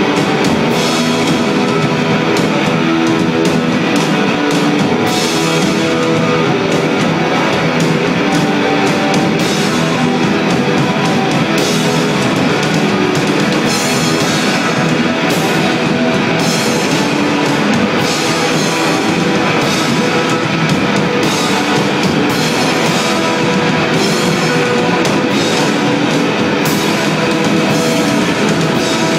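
Live rock band playing loud and without a break: electric guitars over a drum kit with cymbals, heard through a phone's microphone in the crowd.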